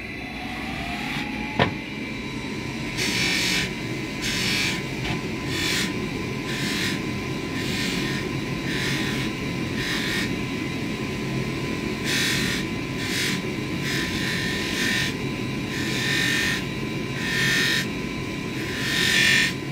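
Polishing motor running a cloth buffing wheel with a steady whine that rises in pitch over the first second or so, and a sharp click about a second and a half in. A metal ring is pressed against the wheel in short strokes, each one a brief hiss, about a dozen in all.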